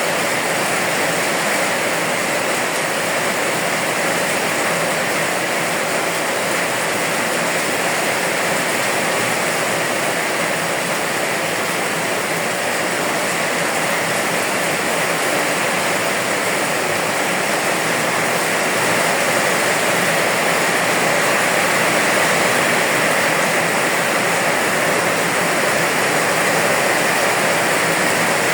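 Steady heavy rain, a dense even hiss with no separate drops standing out, growing slightly louder in the last third.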